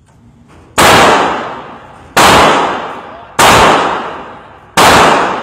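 .40-calibre Glock pistol fired four times, roughly a second and a half apart, each very loud shot followed by a long echo off the walls of the indoor range.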